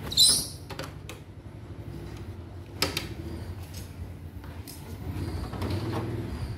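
A photocopier running with a steady low hum. A short, high, squeaky sound comes right at the start and a sharp click about three seconds in.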